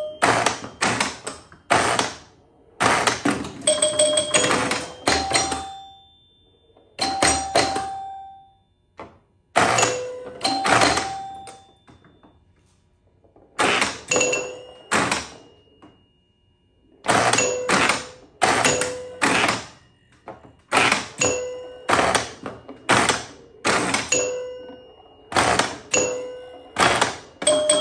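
1976 Bally Flip Flop electromechanical pinball machine in play: rapid clacking of its flippers, bumpers, relays and score reels, mixed with chime bells ringing at several pitches. The action comes in clusters with a few short lulls.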